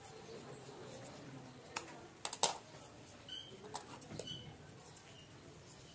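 Tailoring scissors cutting through blouse fabric: a few sharp clicks of the blades, the loudest pair about two and a half seconds in, with the soft rustle of the cloth being handled.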